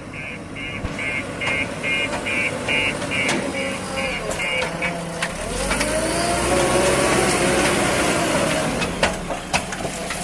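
A reversing alarm beeps steadily, about two or three beeps a second, over a running diesel engine. About five seconds in, the beeping stops and the engine revs up, its pitch rising and then falling. A couple of sharp knocks come near the end.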